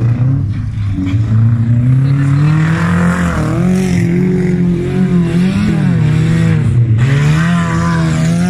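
Wreck-race car engines running hard on a dirt track, revving under throttle: the pitch climbs over the first few seconds, drops and picks up again twice, then holds high.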